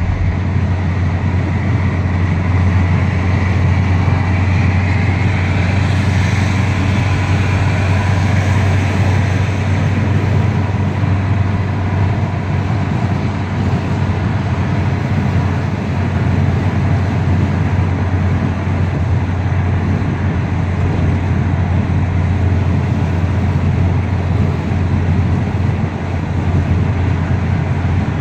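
Car driving at road speed heard from inside the cabin: a steady drone of engine and tyre noise with a strong low hum, and a faint whine that rises in pitch a few seconds in.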